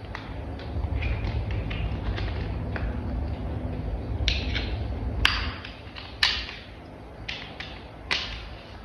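Hard plastic toy parts tapping and clicking as they are handled and fitted together, with a few sharper snaps, the loudest about five, six and eight seconds in, over a low rumble of handling.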